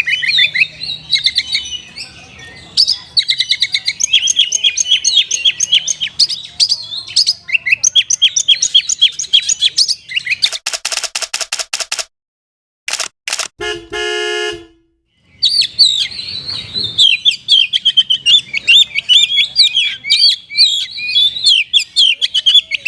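Oriental magpie-robin (kacer) singing a rapid, loud run of high chirping and whistled phrases in the manner of a kapas tembak. The song breaks off about halfway for a rapid buzzing rattle and a short honk-like tone, then resumes.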